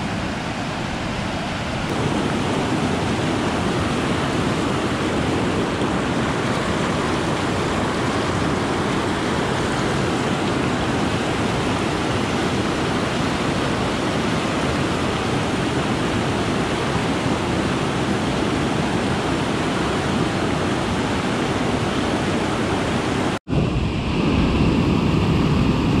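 River whitewater rushing steadily over rock ledges at a small waterfall. It drops out for an instant near the end, then comes back slightly louder.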